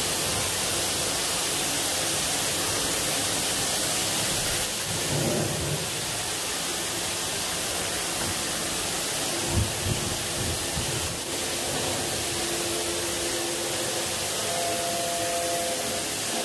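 Pressure-washer wand spraying a high-pressure water jet over the sheet-metal ceiling, walls and floor inside an old bus: a steady hiss of spray, with a brief low thump about nine and a half seconds in.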